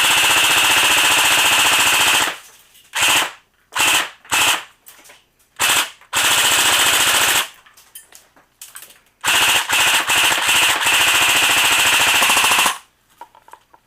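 Echo1 Red Star AK airsoft electric gun firing on full auto, its gearbox cycling in a rapid, even rattle. A long burst of about two and a half seconds, several short bursts, then two more long bursts, the last about three and a half seconds.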